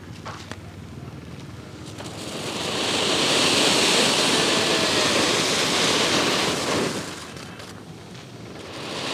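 Repeating firework fountain (a flowerpot that fires six colours in turn) spraying sparks with a loud rushing hiss. The hiss swells about two seconds in, dies down around seven seconds, and starts to build again near the end as the next shot goes.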